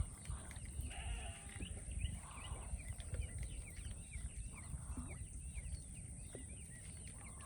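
An animal call with a stacked, pitched sound about a second in, and softer calls near two and five seconds, over many short high chirps and a low rumble.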